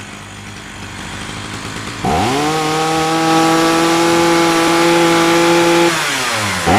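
Husqvarna 61 two-stroke chainsaw idling, then revved to full throttle about two seconds in and held at a steady high pitch for around four seconds before dropping back, with a quick blip of the throttle at the end. It is being run up during carburettor adjustment.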